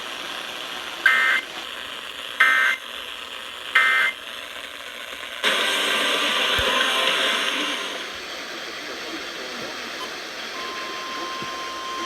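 NOAA Weather Radio Emergency Alert System data header: three short, harsh buzzing bursts about a second and a half apart that mark the start of a new alert. A stretch of radio hiss follows, and near the end a steady single-pitch alert tone begins.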